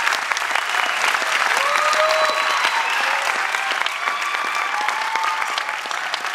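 Audience applauding, a dense patter of many hands clapping, with a few drawn-out calls rising over the clapping.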